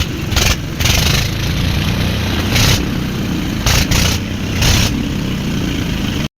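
Old diesel engine running, a steady low rumble with irregular loud bursts of hiss every second or so. The sound cuts off abruptly near the end.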